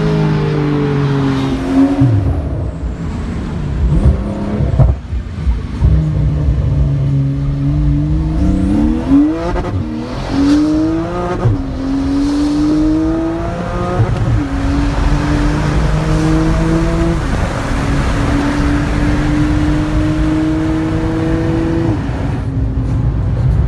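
Porsche 911 flat-six engine through an aftermarket exhaust. It comes off the throttle, pulls up through two gears with quick upshifts, then holds nearly steady revs with a slow rise until it drops off near the end.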